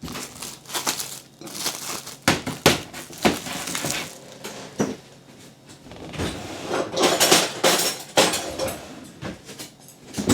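Kitchen handling noise: an irregular run of clicks, knocks and clinks, like utensils and dishes being moved and set down, with some rustling in between.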